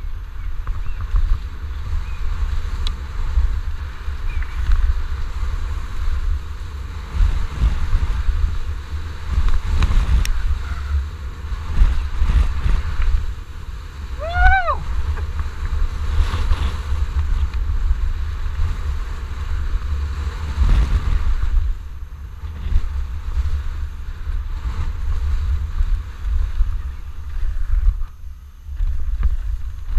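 Wind buffeting a GoPro camera's microphone with a heavy low rumble, mixed with the rattle of a downhill mountain bike's tyres and frame over a rough dirt trail, with occasional sharp knocks over bumps. A brief high call that rises and falls comes about halfway through.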